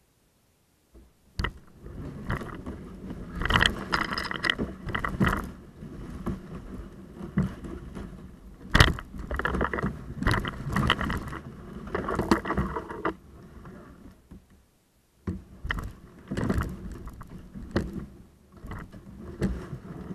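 Plastic kayak hull dragged over dry leaf litter, twigs and brush: irregular rustling, crunching and scraping with occasional sharp knocks. It starts about a second in and pauses briefly about fourteen seconds in.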